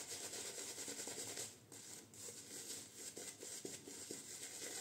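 Omega Roma Colosseo shaving brush scrubbing lather into a three-week beard: a soft, rapid bristly rubbing, with a brief pause about a second and a half in.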